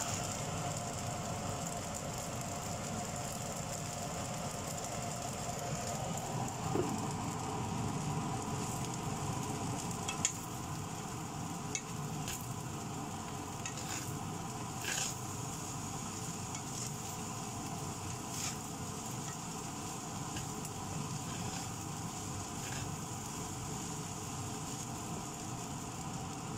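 Rice and scrambled egg sizzling in a nonstick wok while being stir-fried with a wooden spatula, with a sharp tap or scrape of the spatula against the pan now and then.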